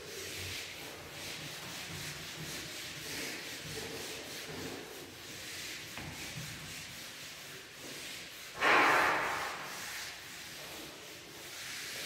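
Whiteboard eraser wiping a whiteboard clean in repeated rubbing strokes, with one louder rub just under a second long about nine seconds in.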